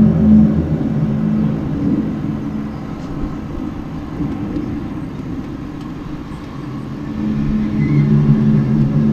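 Low, droning hum made of several steady deep tones, heard outdoors, fading about two seconds in and swelling back near the end: the unexplained 'strange noise' that the recorder says has been recurring outside.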